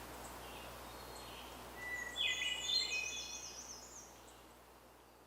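A songbird sings one quick, complex phrase about two seconds in, over a steady outdoor hiss with faint distant bird chirps. The sound fades out near the end.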